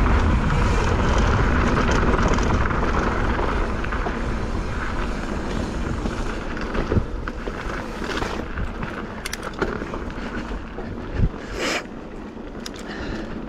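Wind rushing over the microphone and knobby tyres rumbling over a dirt trail on a fast mountain-bike descent, with scattered knocks and rattles from the bike over bumps. The rush eases off over the second half as the bike slows.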